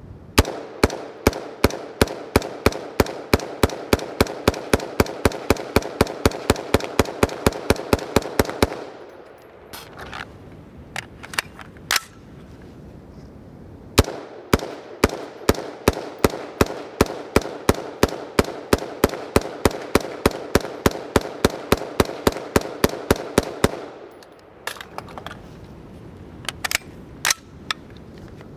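BCM AR-15 5.56 mm direct-impingement rifle firing rapid semi-automatic strings of about four to five shots a second. Two long strings are broken by a pause of a few seconds with a few single shots, and a few scattered shots come near the end.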